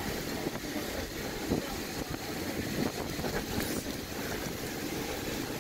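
Strong wind and heavy rain, the wind buffeting the microphone into a steady, rough rumble.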